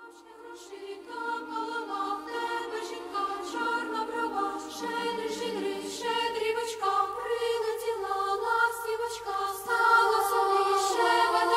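Choral music: voices singing sustained chords in harmony, fading in over the first couple of seconds.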